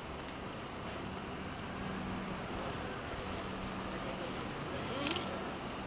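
City transit buses pulling into a terminal loop: a steady low engine hum over a wash of outdoor traffic noise, with one brief sharp click about five seconds in.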